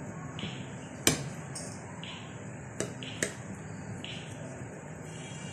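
Knife cutting through a slab of coconut-topped barfi on a ceramic plate: soft scrapes of the blade through the sweet, with sharp clicks of the blade against the plate, the loudest about a second in and two more around three seconds in, over a steady low hum.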